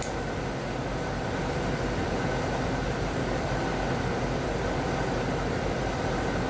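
Handheld butane kitchen blowtorch clicked on, then its flame hissing steadily as it singes surface mold off a shiitake grow block.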